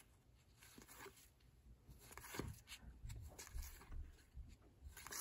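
Faint handling noise of baseball trading cards being slid and flipped through in the hands: soft scattered clicks and rustles, with low bumps of handling.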